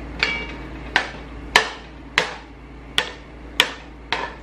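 A metal spoon knocking against a cooking pan in a steady rhythm: about seven sharp clinks, some ringing briefly, as food is pushed aside to clear a space in the middle of the pan.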